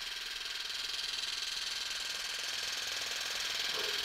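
Vybe percussive massage gun running on its lowest speed, speed 1, its head pulsing against the triceps with a steady, rapid buzz.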